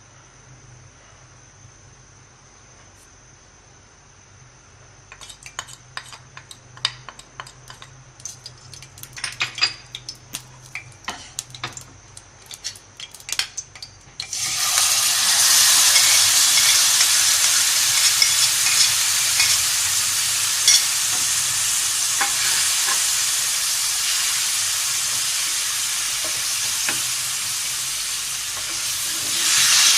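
Oil heating in a pan gives scattered sharp crackles. About halfway through, the marinated chicken goes into the hot oil and a loud, steady sizzle of frying starts suddenly and carries on.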